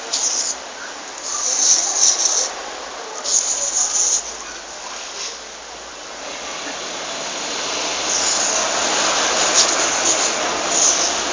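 Water spraying from a fire hose, hissing in three short spurts, then a steadier spray that grows louder over the last few seconds.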